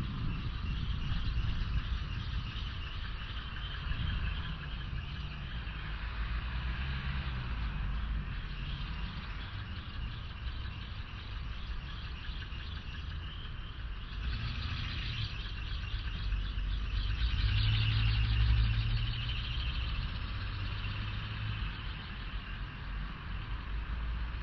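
Wind rumbling on a moving cyclist's camera microphone, with road traffic going by alongside. Near the two-thirds mark a vehicle grows louder for a few seconds, then fades.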